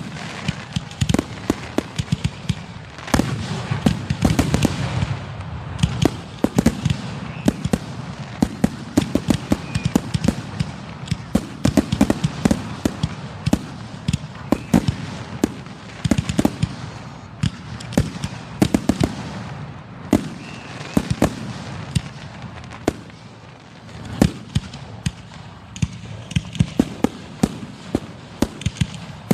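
Aerial fireworks display heard from close to the launch site: a rapid, nonstop barrage of sharp bangs and crackles over a low rumble.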